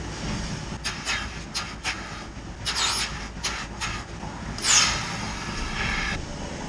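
Milking machine in a milking parlour: the vacuum system hums steadily while short bursts of air hiss into the teat cups as the clusters are handled and attached. A few clicks come with them, and the loudest hiss is about five seconds in.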